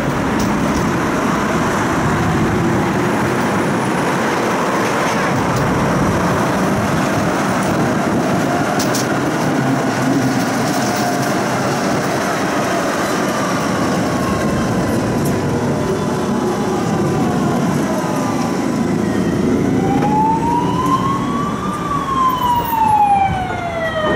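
Tram running on its rails, a steady rumble heard from on board. Near the end a siren wails, its pitch rising and falling in sweeps of about two seconds each.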